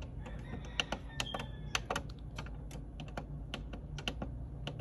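Buttons on an Epson WorkForce WF-7210 printer's control panel being pressed over and over, a quick irregular run of sharp clicks, as the paper size and type settings are scrolled through.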